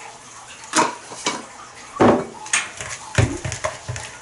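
Utensil knocking and scraping against a glass mixing bowl while stirring a thick dough: a run of irregular clinks, the loudest about halfway through.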